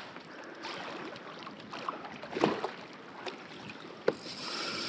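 Water sloshing around a kayak hull, with wind noise on the microphone and a few short knocks and splashes.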